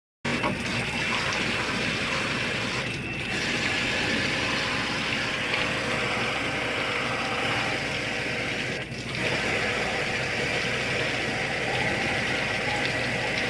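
High-pressure water jet from a pressure-washer spray gun, hissing steadily as it washes the blower fan and inner casing of an opened air conditioner. The spray breaks off briefly twice.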